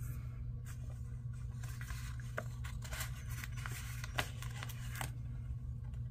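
Paper sticker sheet rustling and crackling as it is handled and stickers are worked off it, with a run of crisp crinkles and clicks through the middle seconds. A steady low hum sits underneath.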